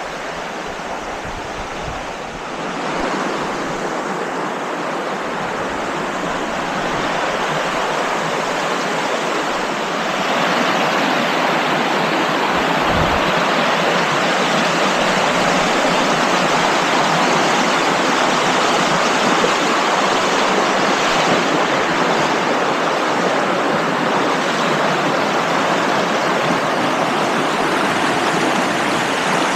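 Rushing water of the Arroyo Alcázar, a steady loud rush that grows louder about three seconds in and again about ten seconds in.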